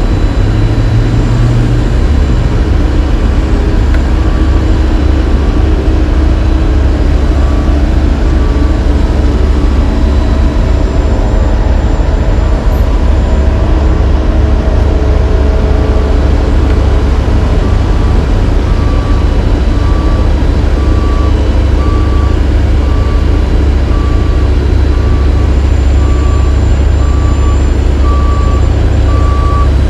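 Heavy diesel engines of an asphalt paver, a dump truck and a passing road roller running with a steady low rumble. A reversing alarm beeps at an even pace, faint about a third of the way in and louder toward the end.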